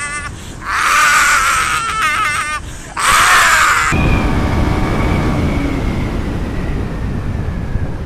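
Loud high-pitched screaming in three wavering cries, the last cutting off about four seconds in. After that, a motorcycle running with heavy wind noise and a slowly falling whine.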